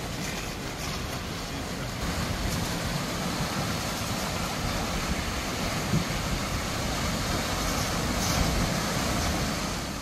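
Sea surf washing and breaking against rocks on a rocky shoreline, a steady rushing wash of water, with wind buffeting the microphone.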